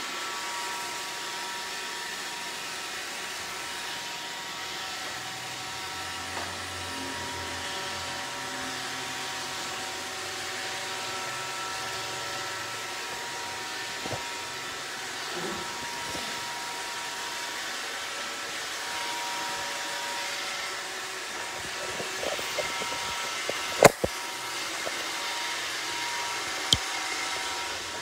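iRobot Roomba robot vacuum running, a steady whir with several steady whining tones from its vacuum motor and brushes. A few faint knocks, and one sharp click about three-quarters of the way through.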